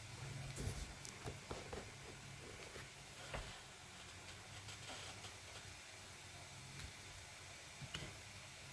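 Faint, scattered clicks and taps over a steady low hum. The loudest taps come about half a second, a second and a half and three and a half seconds in, with another near the end.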